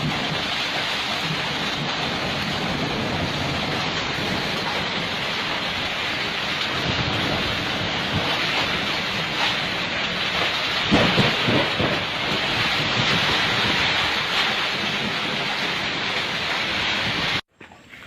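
Heavy rain falling in a storm: a dense, steady hiss with a louder surge about eleven seconds in, cutting off abruptly near the end.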